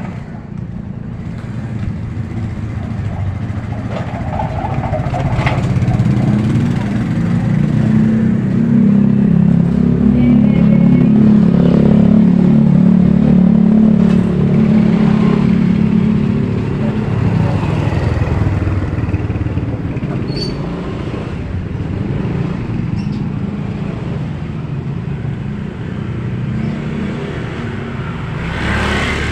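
A motorcycle engine running close by. It grows louder over several seconds, is loudest around the middle, then fades away over steady street noise.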